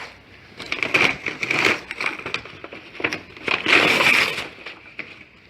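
Cardboard being handled and crushed, in several rough crackling bursts with sharp cracks between about one and four and a half seconds in.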